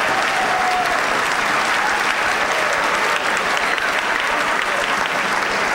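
A large banquet audience applauding steadily, with cheering and laughter mixed in, in response to a punchline.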